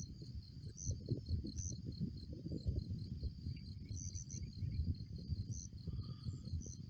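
Crickets and other night insects trilling in a steady high pulsing chorus, with another insect chirping about once a second. Under them runs an uneven low rumble, the loudest part.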